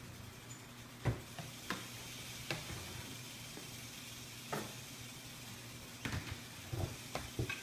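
Metal snake tongs clacking and tapping on a concrete floor: about eight sharp, irregular clicks, several bunched together near the end, over a faint steady low hum.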